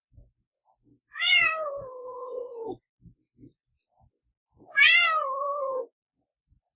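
Domestic cat meowing twice: a long meow about a second in and a shorter one near the five-second mark, each starting high and falling in pitch.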